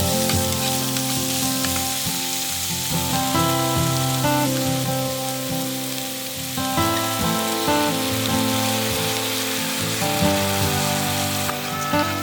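Instrumental background music with held chords, over a steady sizzling hiss.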